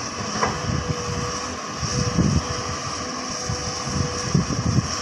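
Hyundai crawler excavator's diesel engine running as it digs soil, with a thin steady whine from about half a second in. Gusts of wind buffet the microphone.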